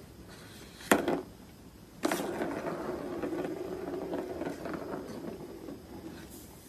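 A ball rolling around a plastic circular cat track toy, a steady whirring rattle that starts about two seconds in and slowly fades near the end, after a sharp plastic knock about a second in.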